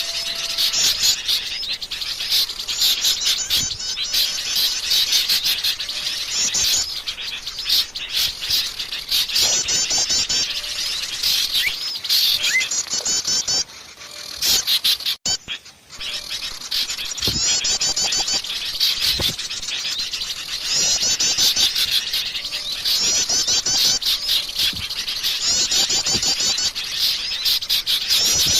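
Forest birds singing and chattering in quick, high-pitched repeated trills, several voices overlapping, with a brief drop about halfway through.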